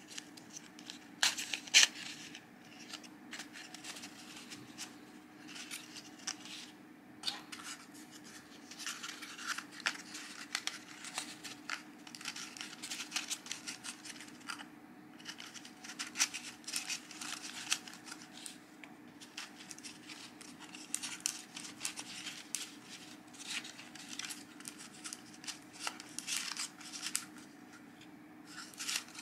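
Stiff cardstock parts rustling and clicking as a stack of paper plates is handled and worked along a hexagonal paper shaft: many short, irregular clicks. A faint steady hum runs underneath.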